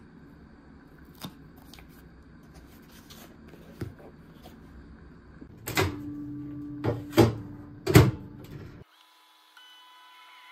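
Light handling of a plastic food container, then a 700 W dial-timer microwave oven's door shutting and its dials turned, several loud clicks over a steady hum. Near the end the oven starts heating with a steady whine.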